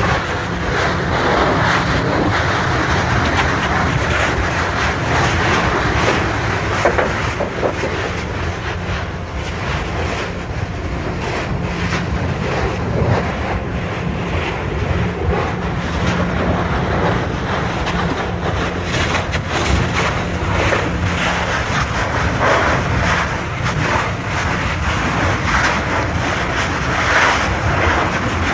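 Steady roar of an erupting Kilauea lava fissure, with wind noise on the microphone and scattered crackling.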